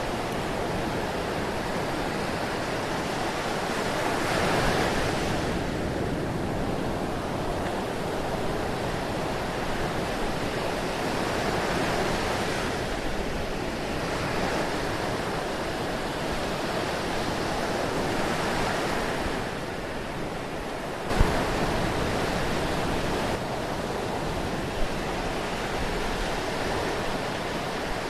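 Ocean surf: a steady wash of waves, swelling and easing every several seconds. A sharp click about three quarters of the way through, where the sound changes abruptly, and a smaller click a few seconds later.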